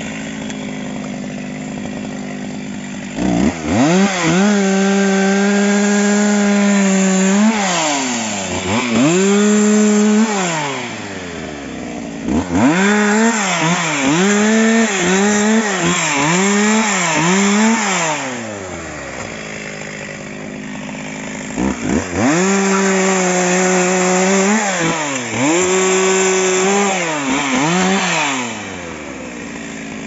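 Two-stroke chainsaw switching between idle and full throttle while cutting branches and trunks of felled trees: four spells of high revs, the third broken into several short rev-ups, each falling back to idle.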